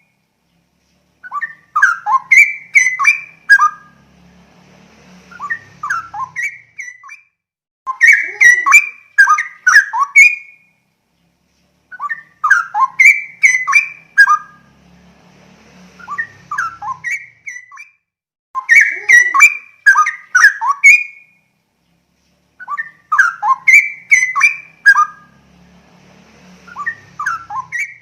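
Straw-headed bulbul (cucak rowo) singing: loud, bubbling phrases of rapid rich notes, each a couple of seconds long, repeated after short pauses, with softer phrases between them.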